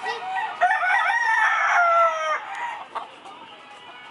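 A rooster crowing: one long crow of about two seconds starting half a second in, falling in pitch at its end.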